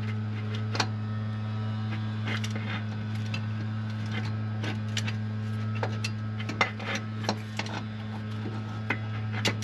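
Scattered light metallic clicks and knocks of hand work on metal parts, over a steady low hum.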